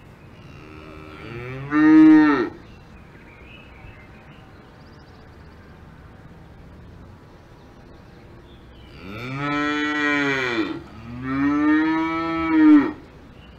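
Cows mooing: one long moo a couple of seconds in, then two more moos one after the other near the end.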